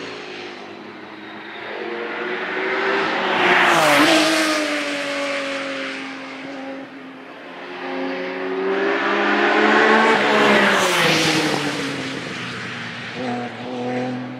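Racing car engines at high revs passing a bend one after another, with the loudest passes about four seconds in and again around ten to eleven seconds in. Each engine note rises as the car approaches and drops in pitch as it goes by, with other engines audible underneath between the passes.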